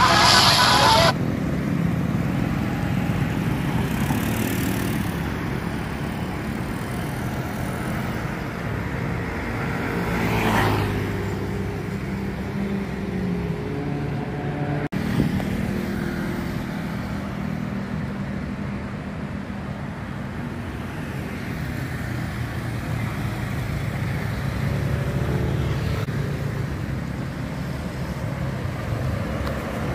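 Road traffic: engines running with a steady low rumble, and a vehicle passing close about ten seconds in. A louder rushing sound cuts off abruptly about a second in, and there is a single sharp click about halfway through.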